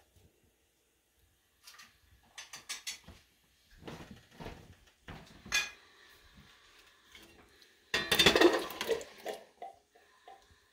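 Metal cans and kitchenware clanking and clinking while cans of red beans are handled and drained. There are a few scattered knocks, then a loud clatter about eight seconds in with short ringing notes after it.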